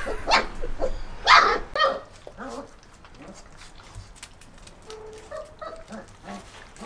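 German wirehaired pointer puppies yipping and whimpering: a few loud, sharp yelps in the first two seconds, then softer, short whines.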